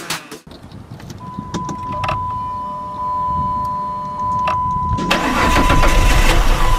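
A 2005 Dodge Magnum's 3.5-litre V6 starting and running at idle, the engine whose owner suspects a jumped timing belt from its trouble codes. A steady electronic warning chime tone sounds throughout, and a louder rushing noise comes in about five seconds in.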